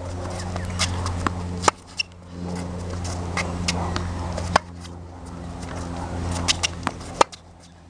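Tennis racket striking a ball in a groundstroke rally: sharp pops about every three seconds, the last just under a second from the end, with fainter ball bounces between them. A steady low hum runs underneath.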